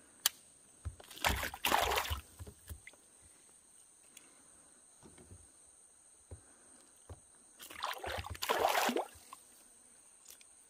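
Water splashing beside a kayak in two bursts, one about a second in and a longer one near the end, with a sharp click just after the start.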